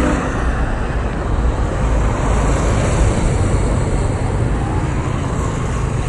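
Highway traffic heard from the roadside, with a bus and motorcycles coming past: a steady, loud rush with a deep low rumble.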